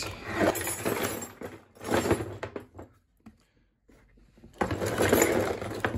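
Tools and small hardware rattling and clattering as they are handled in a toolbox caddy, in two spells with a short quiet gap between them.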